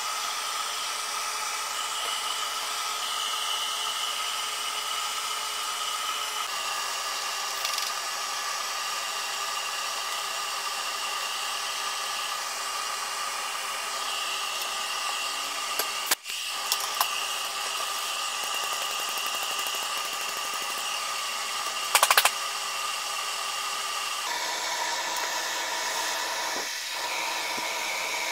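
Laguna wood lathe running steadily with a high motor whine. The pitch of the whine shifts a few times, and there are two brief clicks partway through.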